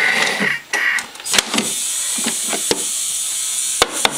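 Thermomix-style kitchen robot's motor whining at high speed as it grinds lemon peel with sugar, stopping about a second in. After that come several sharp clicks and knocks as the machine's lid is handled.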